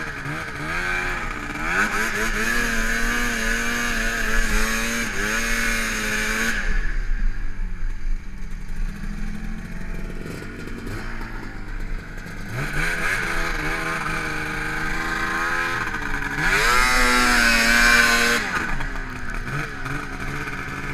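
Ski-Doo MXZ snowmobile's two-stroke engine revving up and down as the sled works through deep snow. It drops to a lower, duller note for several seconds around the middle while the sled is bogged in powder, then revs hard again, loudest in a long rising run near the end.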